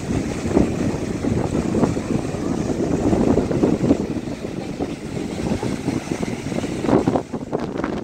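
Wind buffeting the microphone in gusts over the wash of breaking surf.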